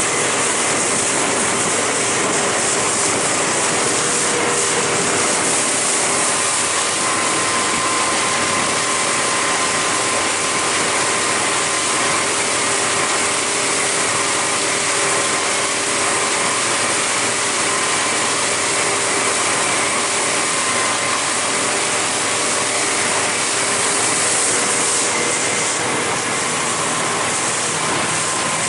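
Boat under way at cruising speed: a steady engine drone under a constant rush of wind and water, with a few faint steady whining tones.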